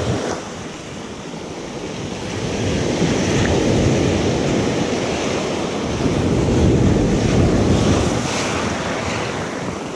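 Ocean surf breaking and washing up a gravelly shoreline, swelling louder twice as waves come in, with wind rumbling on the microphone.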